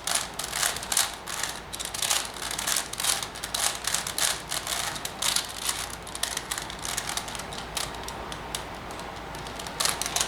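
A 4x4 Rubik's cube (Rubik's Revenge) being turned by hand, its plastic layers clicking and clacking in quick, irregular runs, with the clicks thinning out for a couple of seconds near the end.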